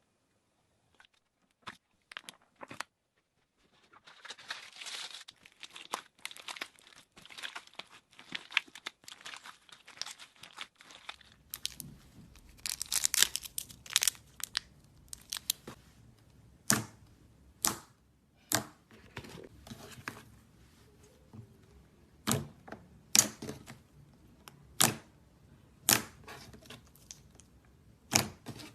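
Slime being worked by hand: a few scattered small clicks, then several seconds of dense crackling, then a run of sharp pops and snaps about once a second over a low background hum.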